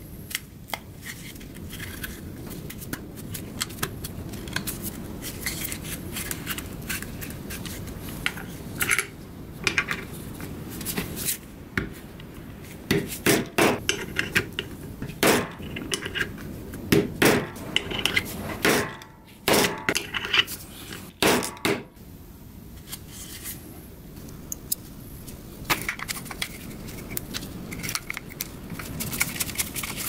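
Sharp metallic clicks and clacks of a bench eyelet press setting small metal eyelets into a stiff Kydex sheath, among rustling and tapping as the plastic is handled. The clicks come thickest and loudest around the middle.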